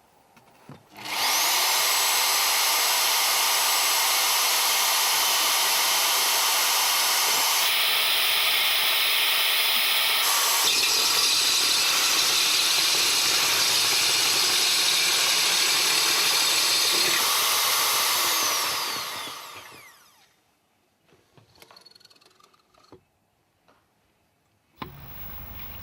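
Hand-held diamond core drill motor spinning up with a rising whine and running steadily for about seventeen seconds, its sound shifting for a couple of seconds partway through. It then winds down with a falling whine.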